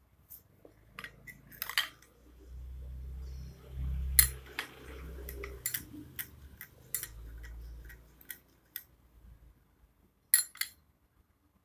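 A metal spoon clinking against a glass in irregular taps, as the lime juice and honey are stirred. A low rumble runs under the clinks for several seconds in the middle.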